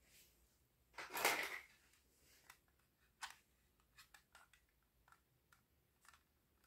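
Small hard-plastic toys being handled on a tabletop: a brief scraping rustle about a second in, then scattered light clicks and taps as a pink plastic toy sewing machine is turned in the hands.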